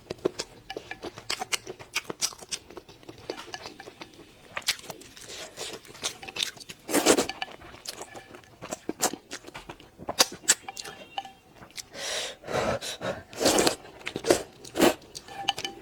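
Close-miked eating: chewing and biting with many small crunchy clicks, and several louder, longer mouth noises about halfway through and again near the end.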